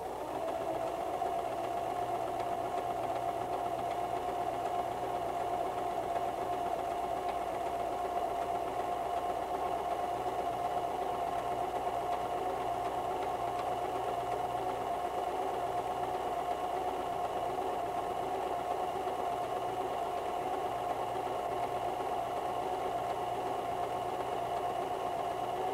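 White 1735 sewing machine running at an even, constant speed, sewing a wide double overlock stitch along a folded hem in knit fabric.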